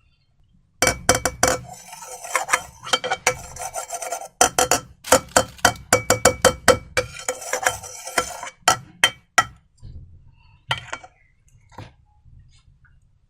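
Slime being stirred in a bowl with a utensil: a fast run of sticky clicks and clinks that starts about a second in and thins out to a few scattered clicks after about nine seconds.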